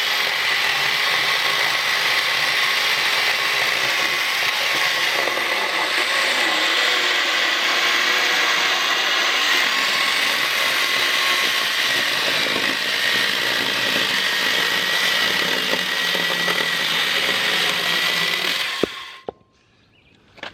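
Vintage Milwaukee 6210 electric chainsaw running steadily under load, its motor whine mixed with the chain cutting through a dried-out black locust log. It cuts off suddenly about 19 seconds in.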